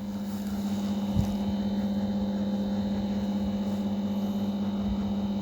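A steady low hum with no change in pitch, and a single soft knock about a second in.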